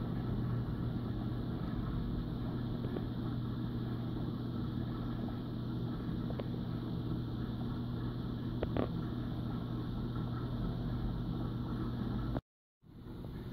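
Steady low electric hum of a reef aquarium's water pump running, with a few faint ticks. The sound cuts out for a moment near the end.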